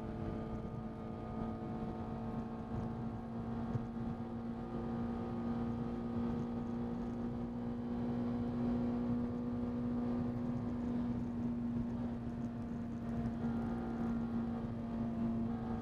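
Honda Integra Type R (DC5) K20 four-cylinder engine pulling at steady revs, its drone holding a level pitch, with tyre and road noise underneath, heard from inside the cabin.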